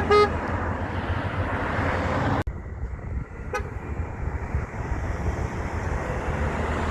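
A brief horn toot at the start, then a passing semi truck's engine running over steady road noise. The sound cuts off abruptly about two and a half seconds in, and a faint short beep follows about a second later.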